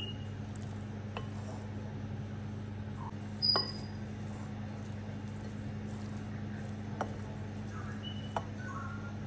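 Wooden spoon stirring rice in a glass mixing bowl, knocking against the glass in four short clinks, the loudest about three and a half seconds in, over a steady low hum.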